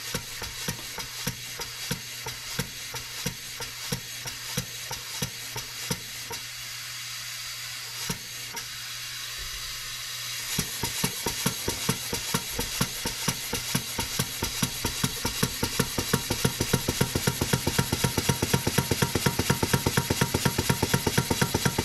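Stuart beam engine model running on compressed air: a sharp beat on every stroke over a steady hiss of air. About six seconds in the beats die away, leaving only the hiss. Shortly after ten seconds the engine picks up again, and its beats come faster and louder. The builder calls it a terrible sound and thinks the valve admission timing is way off.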